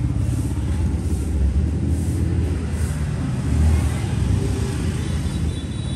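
Steady low mechanical rumble with a fast pulsing texture, like a motor running.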